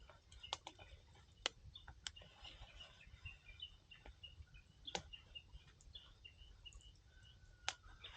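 Firewood burning in an outdoor campfire, crackling faintly, with a handful of sharp pops spread through.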